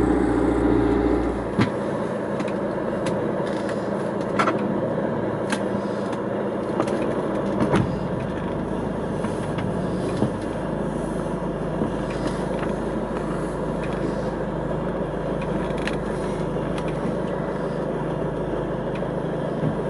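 Boat engine running. About one and a half seconds in, the sound changes abruptly to a steadier engine hum with scattered clicks and knocks from fish being handled on deck.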